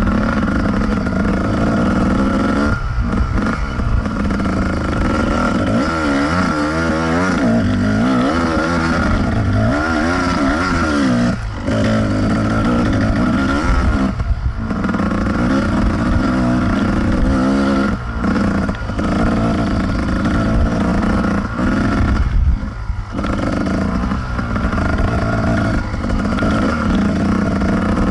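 Kawasaki KDX220 dirt bike's single-cylinder two-stroke engine under riding load, its pitch rising and falling continuously as the throttle opens and closes, with several brief drops where the throttle is shut off.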